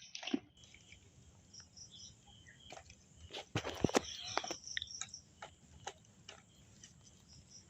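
Irregular clicks, crackles and rustles, loudest about three and a half to four and a half seconds in, with faint bird chirps behind them.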